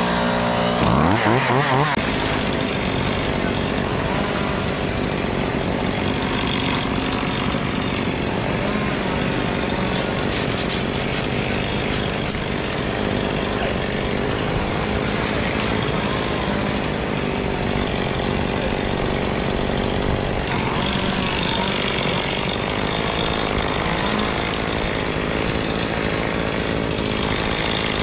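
Chainsaw revving up from idle about a second in, then running at high revs without a break, as it does when cutting through a branch.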